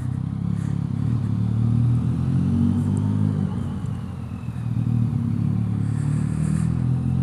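Yamaha MT-09's 847 cc inline-three engine breathing through an aftermarket Akrapovic exhaust as the bike is ridden. The engine note builds, eases off about four seconds in, then picks up again.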